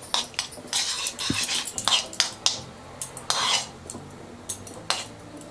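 A spoon scraping and clinking against a metal kadai as a lump of ghee is pushed and spread around the pan. Uneven strokes and clicks, with a few longer scrapes near the middle.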